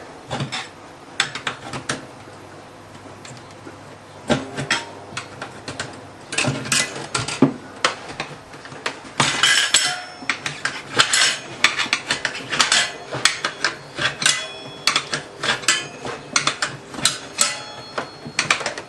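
Steel tyre levers clinking and scraping against a motorcycle wheel rim as a stiff tyre bead is levered off the rim in small bites. Irregular metallic clanks, sparse at first and coming thick and fast from about six seconds in.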